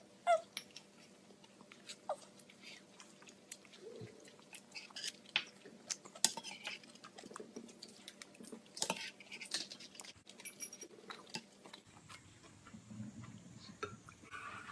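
A toddler eating: small chewing and mouth sounds, with a spoon clicking and scraping against a stainless steel bowl in scattered short clicks.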